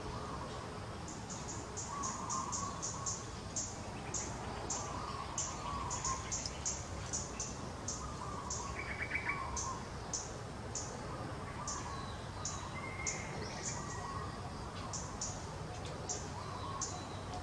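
Outdoor wildlife ambience: short, very high chirps repeat a few times a second, with softer, lower calls every second or two over a steady background.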